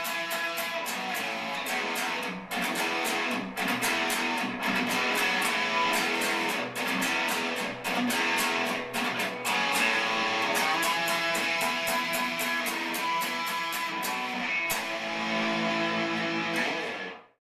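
Guitar music with steady strummed chords, which drops away sharply near the end.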